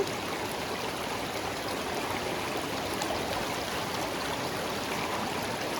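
River water flowing steadily, an even rushing of moving water.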